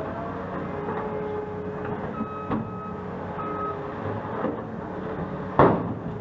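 Heavy construction equipment running with a backup alarm beeping. One loud metallic bang or clank comes near the end.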